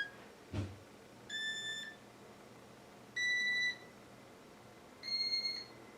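Electronic beeps from a Casablanca Inteli-Touch ceiling fan control: three half-second beeps about two seconds apart, each a step higher in pitch, as the fan is stepped through its speeds. A short soft knock comes about half a second in.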